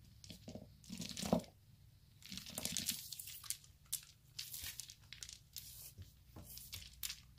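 Faint rustling and light clicking of a chunky acrylic bead necklace being handled and moved about on a cloth-covered table, the beads knocking together in short irregular bursts.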